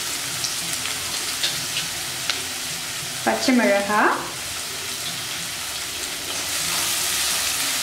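Chopped onions, cashews and dried red chillies sizzling in hot oil in a kadai, with a few light clicks of a spatula against the pan. The sizzle grows louder near the end as the pan is stirred.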